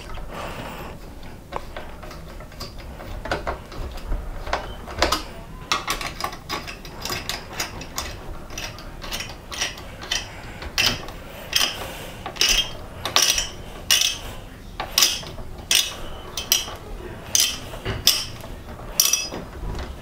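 Screwdriver turning the spring-loaded mounting screws of a desktop CPU cooler down onto the motherboard, making a series of sharp mechanical clicks that grow louder and more regular in the second half, about one or two a second.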